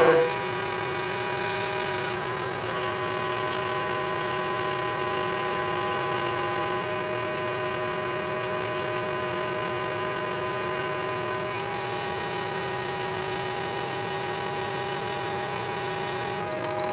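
Manual engine lathe spinning a solid bar while an AMEX indexable spade drill feeds deep into it under flood coolant: a steady whine of several tones from the machine and the cut, shifting slightly in pitch twice along the way.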